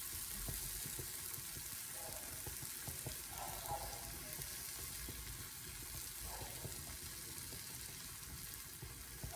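Melted cheese sizzling faintly in a hot frying pan, a steady high hiss, with small clicks and taps from a metal strainer spoon as tapioca flour is shaken through it over the pan.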